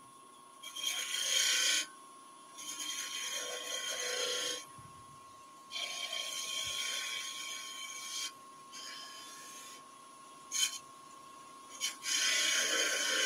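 Turning tool cutting into a spinning wooden goblet on a wood lathe, shaping the thin stem: a series of hissing cuts, each lasting a second or two, with short pauses between them and a faint steady whine underneath.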